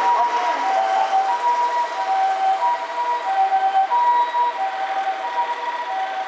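Japanese ambulance's harmonic siren sounding its two-tone hi-lo call, a high and a low tone alternating evenly, about a second and a bit per pair.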